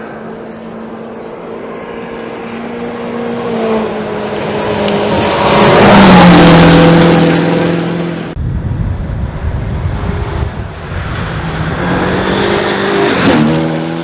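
A rally car at racing speed approaches and passes close by about six seconds in, its engine note dropping in pitch as it goes past. After an abrupt break about eight seconds in, a second rally car approaches and passes near the end, again dropping in pitch.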